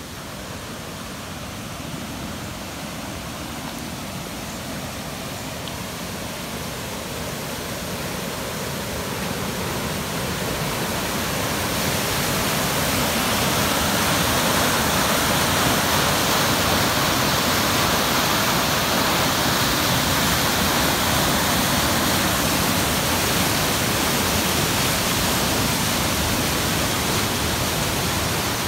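Rushing, churning floodwater in a swollen creek: a steady rushing noise that grows louder over the first ten seconds or so, then holds.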